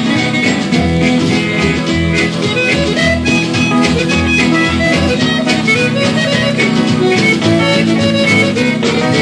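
Instrumental break of a western country song played by a string band: guitar and fiddle carrying the tune over a steady bass.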